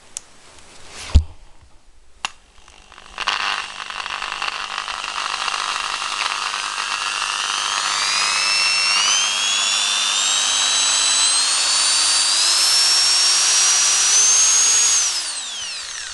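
Fiolent MS 11-13 RE electric drill run up on its variable-speed trigger: it starts about three seconds in and its motor whine climbs steadily in pitch for about twelve seconds to full speed, then the trigger is let go and it spins down near the end. A sharp knock sounds about a second in, before the motor starts.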